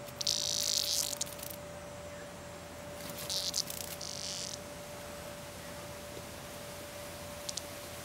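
A cicada buzzing in two bursts of about a second and a half each as a cat paws at it, then two short clicks near the end.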